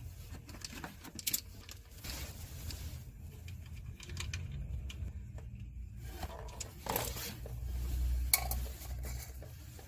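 Oil drain plug on a Saturn Ion's oil pan being loosened with a hand tool and unscrewed by hand, with a few light metal clicks and clinks. Near the end, used engine oil starts running out of the pan into a drain pan with a low steady pouring rumble.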